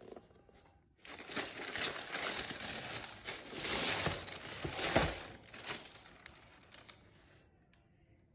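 Tissue paper crinkling and rustling as sneakers are handled and lifted in a paper-lined shoebox. It starts about a second in, is loudest in the middle, and dies away near the end.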